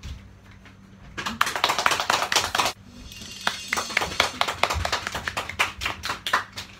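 A small group of children clapping by hand in a small room. A dense round starts about a second in and stops abruptly, then looser, more scattered clapping runs on until near the end.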